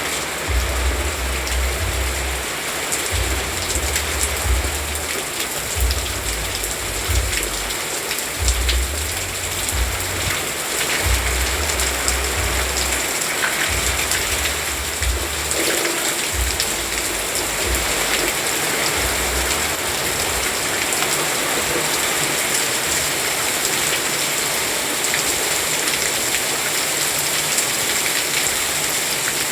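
Steady rain falling, an even hiss of drops. A low rumble comes and goes through the first two-thirds.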